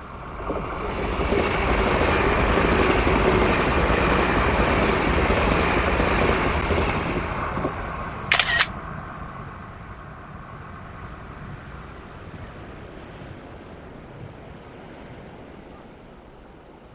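Express electric train passing through the station: a loud rush of wheels on rail swells within the first second, holds for several seconds, then dies away to a low steady noise. A brief sharp burst of sound comes about eight seconds in.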